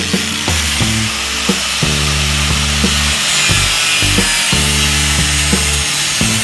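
A power tool runs steadily on sheet metal, a continuous hiss with a faint falling tone in the middle, heard under background music with a bass line and a regular beat.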